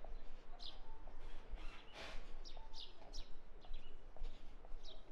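Small birds chirping: short, sharp calls that slide downward, repeated irregularly about once or twice a second over a steady outdoor hiss, with a brief rush of noise about two seconds in.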